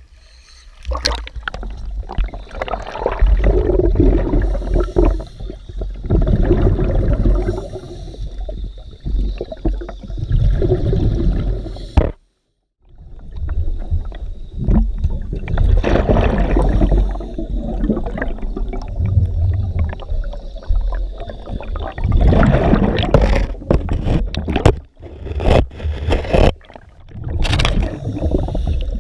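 Muffled underwater gurgling and rumbling, in surges every couple of seconds, as a cave diver swims out through a muddy, flooded sump passage.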